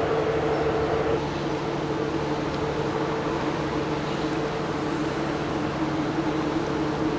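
Steady machinery drone of a passing ship, a low hum with two pitched tones: the higher one fades about a second in while a lower one grows stronger.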